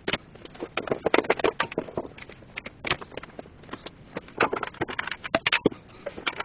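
Workshop clamps being loosened and taken off a glued-up wood blank: an irregular string of sharp clicks, knocks and metal clatter, with a quick run of very sharp clicks about five seconds in.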